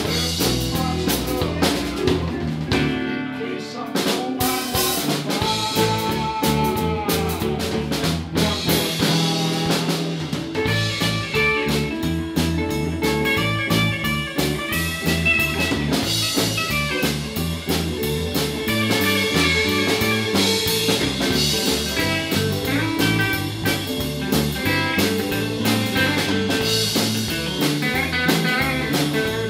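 Live band playing a bluesy number on electric guitars, bass and drum kit, with a lead line that bends in pitch.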